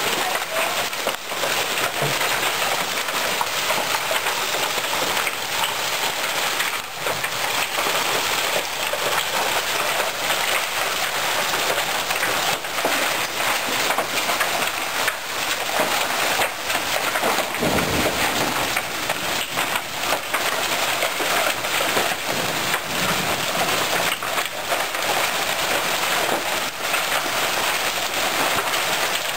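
Hailstorm: hail and heavy rain pounding down steadily, with many sharp hits of hailstones striking surfaces. A brief low rumble about eighteen seconds in.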